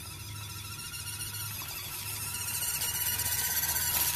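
Small RC truck's brushed electric motor and gearbox whining as it drives, growing steadily louder as it approaches.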